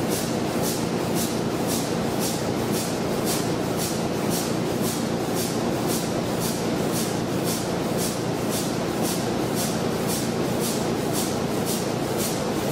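Burmeister & Wain 884-WS-150 double-acting opposed-piston diesel running slowly: a steady low drone with a regular hissing beat about twice a second.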